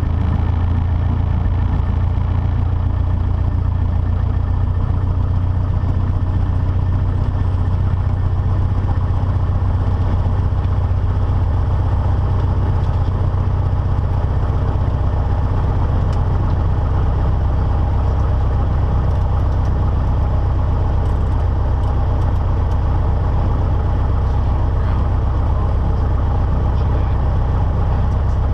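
1981 Cessna 152's four-cylinder Lycoming O-235 engine idling steadily, its propeller turning slowly, as the plane rolls along the runway after landing.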